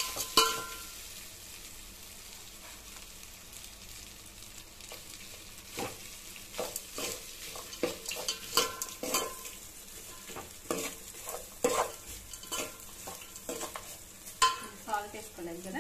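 Metal spoon scraping and knocking against the side of a large aluminium pot as cooked rice is stirred and mixed. The strokes are irregular, with a loud knock about half a second in, a quieter stretch for a few seconds, then frequent scrapes from about six seconds on.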